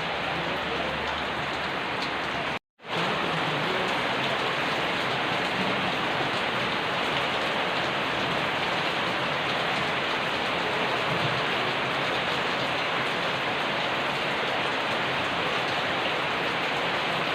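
Steady rain falling, an even hiss of many drops with no single drop standing out. The sound cuts out completely for a moment about three seconds in, then resumes.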